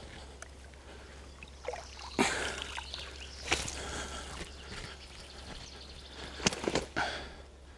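Landing net being lifted out of the water with a carp inside: a few sudden splashes and rustles of net and water, the largest about two seconds in, three and a half seconds in and a cluster near the end, over a faint steady outdoor background.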